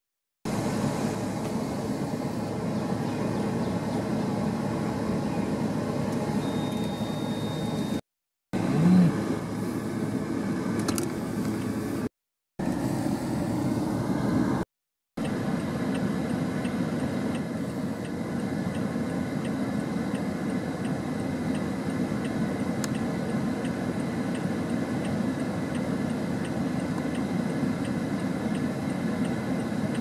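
Steady hum of distant road traffic, an even background rumble broken by a few brief gaps of silence, with a short thump a little after the first gap.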